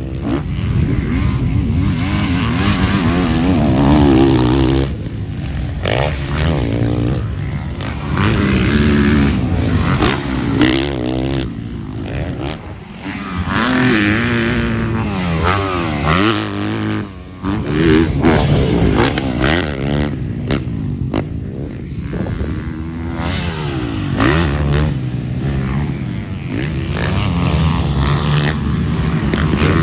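Motocross dirt bike engines revving hard and backing off again and again, the pitch climbing and dropping with each acceleration and gear change as the bikes ride the track.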